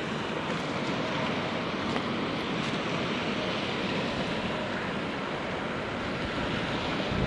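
Steady rush of river water pouring over a dam: an even hiss with no breaks.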